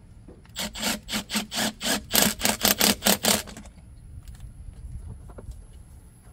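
Nylon zip tie being pulled tight in quick tugs: a run of about a dozen short rasping zips, four or five a second, lasting about three seconds and loudest in the middle, then stopping.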